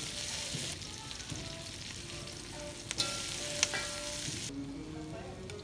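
Chicken pieces and vegetables sizzling in an aluminium wok as a metal slotted spatula stirs them, with a few sharp clicks of the spatula against the wok around the middle. The sizzle drops away suddenly near the end.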